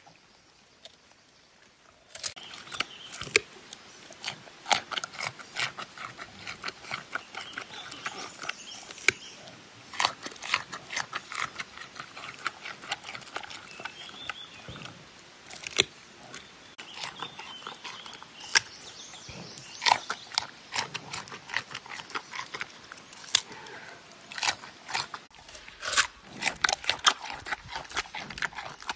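A giant panda biting and chewing a raw carrot: a dense, irregular run of sharp crunches that starts about two seconds in.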